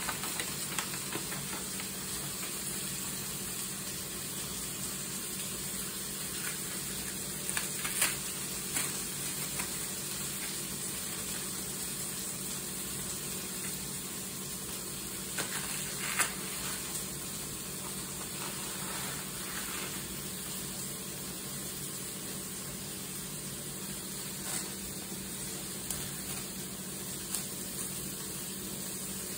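Steady hiss with a few brief crackles and rips of paper as tape is peeled from a yellow paper envelope and it is torn open.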